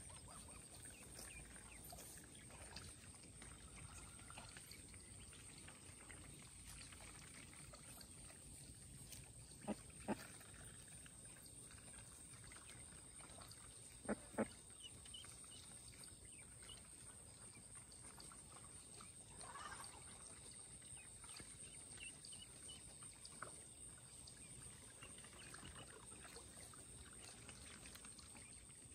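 Quiet pasture background with faint small bird chirps. About ten seconds in, and again about fourteen seconds in, one of the grazing domestic geese or ducks gives a short call of two quick sharp notes.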